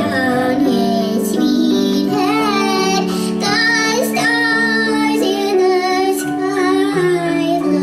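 Music: a song with a high singing voice carrying a melody over steady instrumental accompaniment.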